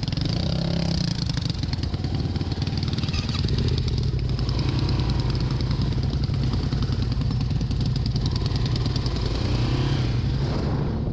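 Yamaha XT350's air-cooled single-cylinder four-stroke engine running as the bike rides off along the road, a steady low engine note that gets a little louder about three and a half seconds in.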